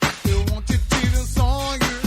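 Upbeat dance-pop music with a steady drum beat and a held, wavering melodic line in the second half.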